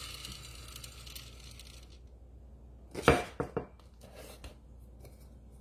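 GA electric blade coffee grinder's whir dying away over the first two seconds after a short burst of grinding peppercorns. About three seconds in comes a quick cluster of sharp clicks and knocks.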